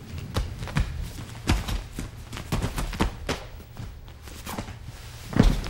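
Footsteps and thuds as people grapple and move about on a training mat: irregular knocks, the loudest a heavy thump near the end.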